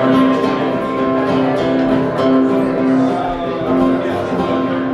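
Acoustic guitars being played, with sustained notes ringing steadily.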